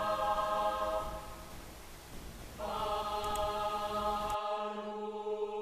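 Background music of slow, held choir-like chords: one chord fades away about a second in, and another swells in about halfway through and is held.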